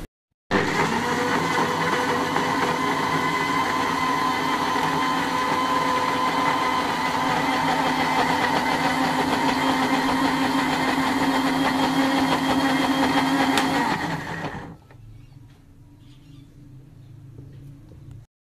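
Electric blender motor running steadily under load as it grinds garlic cloves and ginger into paste. It starts abruptly about half a second in and winds down and stops about 14–15 seconds in.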